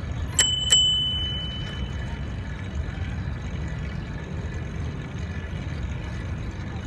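A bicycle bell rung twice in quick succession about half a second in, its ring fading over about a second. Under it runs a steady low rumble of wind and road noise from the moving bicycle.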